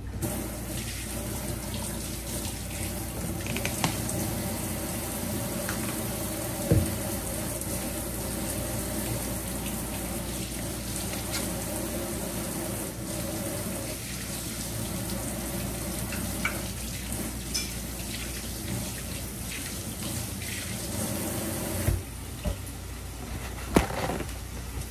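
Kitchen tap running steadily while hands are washed under it, shutting off about 22 seconds in; a few short knocks follow near the end.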